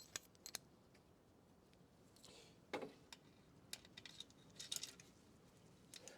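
A few faint, scattered clicks and light metallic taps of small metal parts and tools being handled, with a short cluster of them about four to five seconds in.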